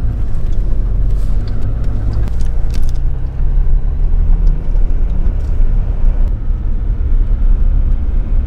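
Off-road vehicle driving: a steady low engine and road rumble, with a few light clicks in the first few seconds.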